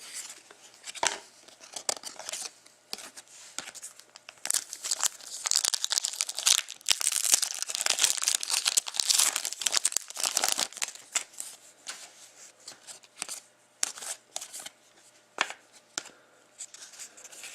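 Foil or plastic wrapper of a hockey card pack being torn open and crinkled: scattered crackles, a dense stretch of tearing and crinkling in the middle, then sparser crackles again as the cards are handled.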